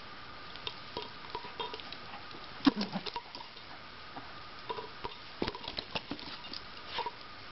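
Small dogs' paws and claws pattering and scuffling on a rug, with scattered light taps and clicks; the loudest, a knock with a brief low sound, comes about two and a half seconds in.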